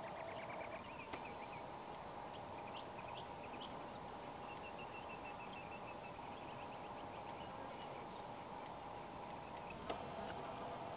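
An insect calling in regular, high-pitched chirps: nine in a row, each about a third of a second long and a little under a second apart.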